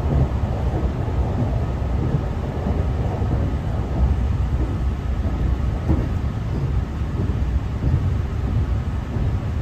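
Cabin noise inside a moving Northern Ireland Railways Class 3000 diesel multiple unit: a steady low rumble of the train running along the line.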